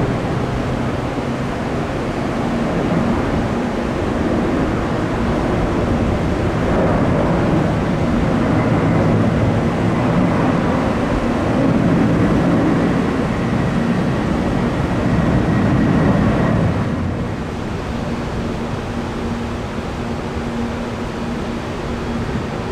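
Jet airliner engines: a dense rushing noise that builds through the middle and drops back near the end, with a faint high whine while it is loudest.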